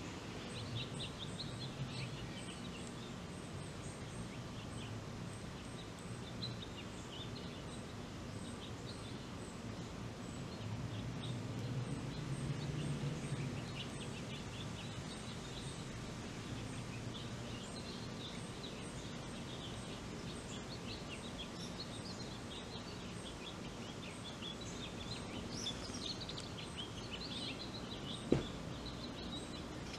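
Outdoor yard ambience: a steady low rumble with birds chirping in the background and a faint high chirp repeating evenly. One sharp click comes a little before the end.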